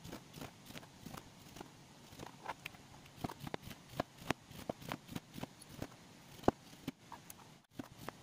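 A knife slicing through a lemon and knocking down onto a plastic cutting board with each cut: a string of sharp knocks at an uneven rhythm, about two or three a second.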